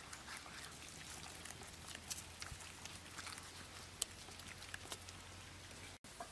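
Hands squeezing and rubbing a sticky chili marinade into raw pig head meat: soft wet squelches with scattered small clicks, one sharper click about 4 seconds in.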